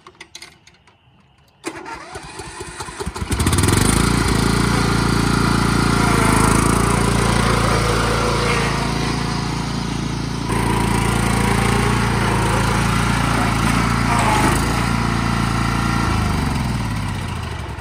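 Cub Cadet riding lawn mower engine running as the mower is driven. It comes in about two seconds in and builds over a second or so to a steady, loud drone. It dies away near the end as the mower stops.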